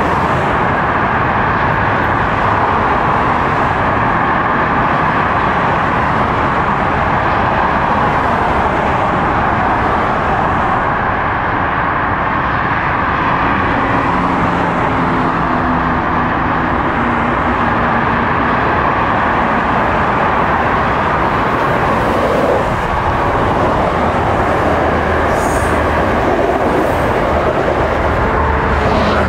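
Continuous tyre-and-engine noise of heavy multi-lane highway traffic. An MBTA Commuter Rail train approaches on the tracks alongside: a faint low hum joins about halfway through, and near the end the train passes below with a deeper rumble.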